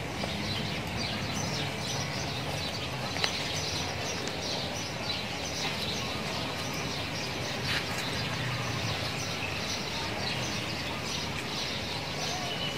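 Small birds chirping and twittering over a low, steady background rumble.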